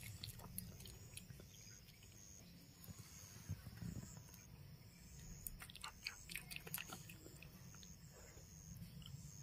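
Red panda chewing a piece of banana: faint, irregular wet mouth clicks, thickest a few seconds in and again past the middle.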